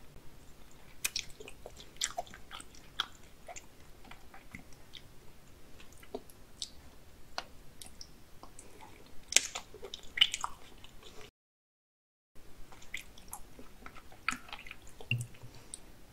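Close-miked biting and chewing of raw salmon sashimi, with many scattered short mouth clicks and smacks. The sound cuts out completely for about a second just past the middle.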